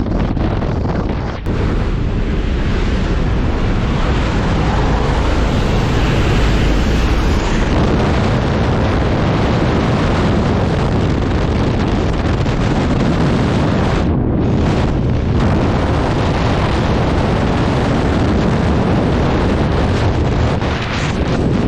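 Loud, steady rush of wind buffeting the microphone, the airflow of a skydive. It briefly loses its hiss for a moment about two-thirds of the way through.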